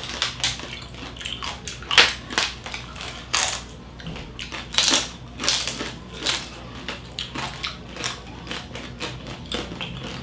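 Close-up crunching of the thick, crisp skin of a whole roasted native lechon being bitten and chewed: a run of irregular sharp crackles, the loudest about two, three and a half and five seconds in.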